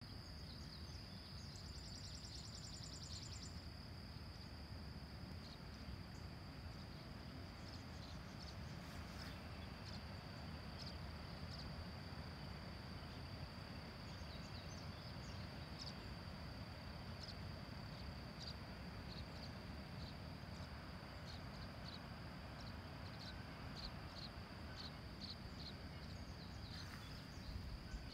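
Faint steady high-pitched insect chorus, with scattered short chirps and a brief rapid trill about two seconds in, over a low steady rumble.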